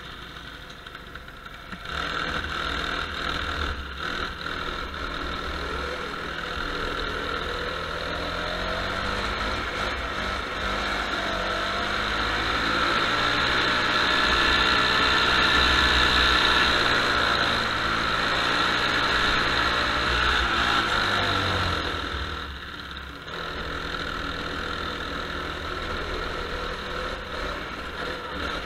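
Go-kart engine heard from on board, quiet for the first couple of seconds, then pulling hard, its pitch rising over several seconds to a peak about halfway and falling back. It dips briefly near the end, then runs on steadily.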